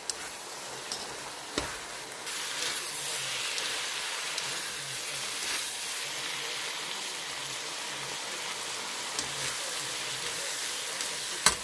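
Pancit canton noodles sizzling in a hot pan as they are tossed and stirred with a slotted spatula, a steady sizzle that grows a little stronger about two seconds in. Two sharp knocks of the spatula against the pan, one about a second and a half in and a louder one near the end.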